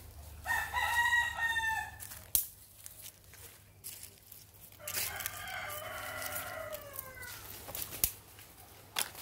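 A rooster crowing twice, each crow about two seconds long, the second falling in pitch at the end. A few sharp snaps sound between and after the crows.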